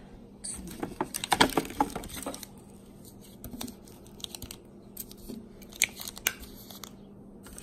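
Cardboard canister firework shells handled and set down one by one on a wooden table, with packaging rustling. A burst of rustling and knocks comes in the first couple of seconds, then scattered single taps.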